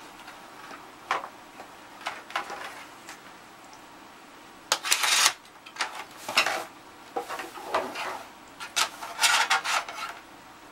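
Metal chassis of a Panasonic RQ-705 reel-to-reel tape recorder being lifted out of its case and set down: a series of irregular scrapes, rubs and knocks, loudest about five seconds in and again near the end.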